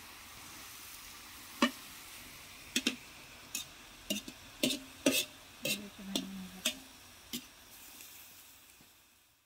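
Metal ladle scraping and clinking against a wide metal wok as sliced jackfruit and pork are stirred, about a dozen sharp knocks over a steady soft sizzle of sautéing. The sound fades out near the end.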